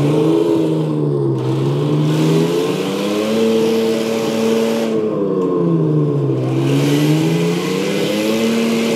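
Heng Long 1:8 Tiger 1 RC tank's sound unit playing its simulated engine sound at maximum volume. The engine note revs up and down twice as the tank is driven, with a hiss during each climb.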